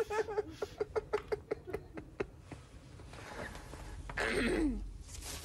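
A man giggling uncontrollably: a quick run of short, high-pitched laughs that fades into breathy gasps, then one falling, wheezy laugh about four seconds in.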